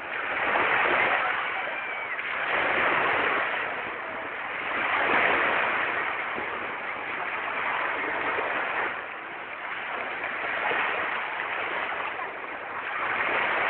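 Small sea waves washing onto a beach, the rush of surf swelling and easing every couple of seconds.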